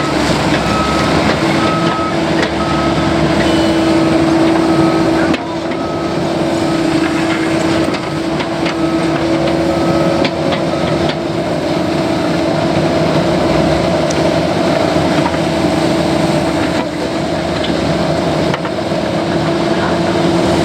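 Cat 308E excavator's diesel engine running steadily under digging work, with a backup alarm beeping repeatedly in the first few seconds and again in the middle stretch.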